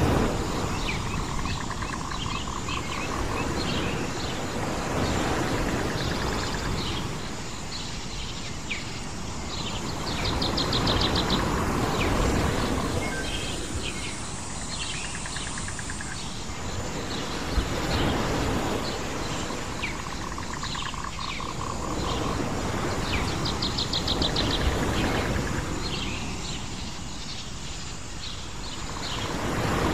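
Island nature ambience: a wash of surf on a shore that swells and fades about every six seconds, with birds chirping and trilling over it.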